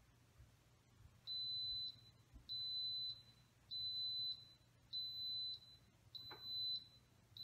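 Instant Pot electric pressure cooker beeping at the end of its pressure-cook time as it switches to keep-warm. It gives a series of about five high, steady beeps, each roughly half a second long, about one a second.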